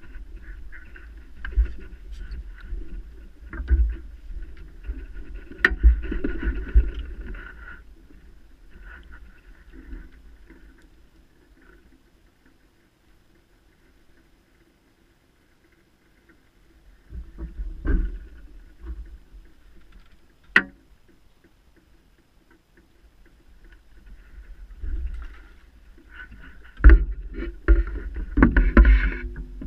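Close handling noise from a match angler's pole and tackle on the seat box: irregular rustling and rumbling with a few sharp knocks, going quiet for several seconds in the middle and busiest near the end.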